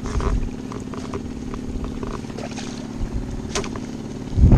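A small engine running steadily at an even hum, with light knocks and clicks of handling over it and a loud low thump near the end.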